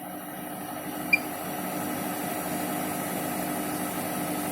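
Bosch Serie 6 Vario Perfect washing machine running mid-wash with a steady hum that grows a little louder. About a second in, a single short beep from its control panel as a button is pressed.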